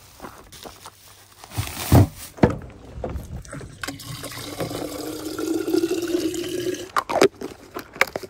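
Water running from the spigot of a plastic water jug into a bottle, the tone rising as the bottle fills, for about three seconds. Before it come two loud thumps, and after it a few knocks as the bottle is handled and capped.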